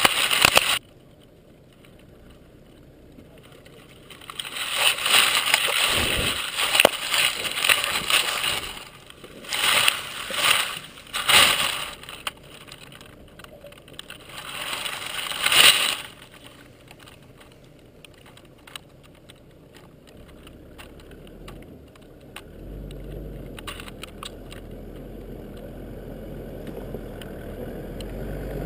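A dropped camera lying in dry grass: a loud scuff of handling in the first second, then rustling and buffeting on the microphone in irregular bursts. In the last several seconds a vehicle engine rumbles faintly and grows louder as it approaches.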